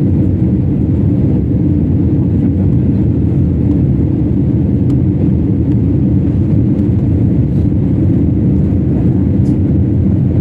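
Airliner cabin during the takeoff run and climb: a loud, steady low rumble from the jet engines at takeoff power and the rushing air.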